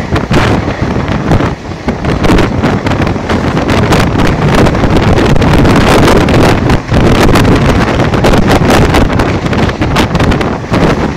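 Loud, gusting wind buffeting the microphone held out of the open doorway of a fast-moving electric suburban train, over the train's running noise.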